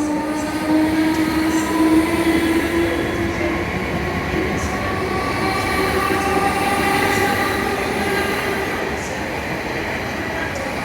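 Class 315 electric multiple unit passing under power, its thyristor-controlled traction motors giving a loud whine that rises in pitch over the first few seconds and then fades back into the rumble of the wheels on the rails.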